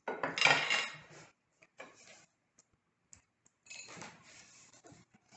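Metal kitchenware clattering as it is handled on a table: a loud clatter in the first second, a few softer knocks about two seconds in, and a quieter scraping sound near the end.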